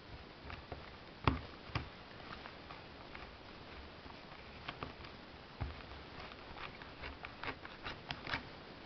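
Faint scattered clicks and small knocks of an angle grinder's brush-holder cap being fitted and screwed into the motor housing by hand, with two sharper knocks about a second in and a run of small clicks near the end.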